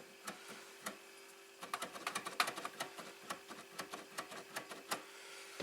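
A quick run of light, irregular clicks and taps from small parts being handled and fitted on a homemade scrollsaw's spring-loaded blade guide, busiest in the middle, over a faint steady hum.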